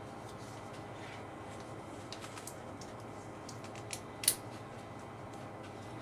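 Small clicks and snips of wire leads and butt-splice connectors being handled, with one loud sharp snap about four seconds in, over a steady low hum.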